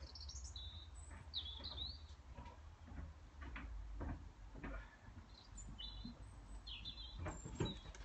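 Blackbirds calling at sundown: short, high, chattering calls in several bursts. A few low knocks come in between, the loudest near the end.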